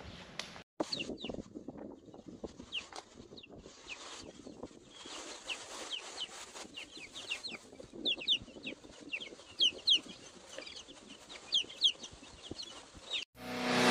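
A brood of young chicks peeping: a steady run of short, high cheeps that grow more frequent partway through.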